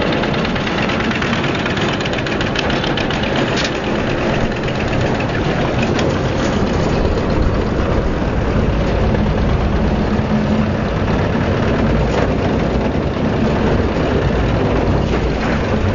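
An engine running steadily with a low hum under a dense rumble, and a few faint clicks.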